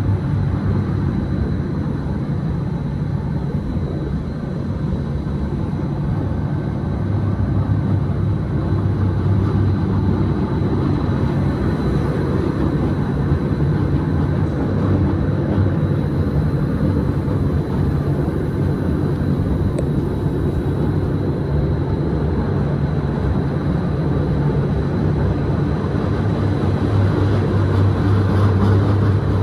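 Electric rack train of the Gornergrat Railway running downhill: a steady low hum with the rumble of the carriages, growing louder near the end.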